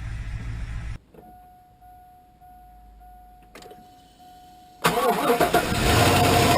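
Engine running cuts off about a second in, leaving a steady electronic chime tone with short regular breaks and a click. About five seconds in, the Suburban's 6.0 Vortec V8 is cranked and fires on a cold start, settling straight into a loud steady idle.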